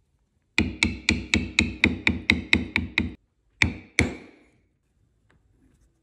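A metal leather-stamping tool (beveler) being struck by a mallet on leather: a quick run of about ten sharp taps, about four a second, each with a short metallic ring, then two more taps after a brief pause.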